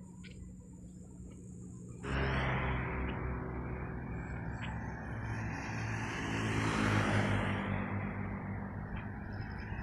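Faint chirps and a thin high buzz, then about two seconds in, road traffic starts abruptly: motorbike and vehicle engines running with tyre noise, swelling as a vehicle passes around the middle and easing off.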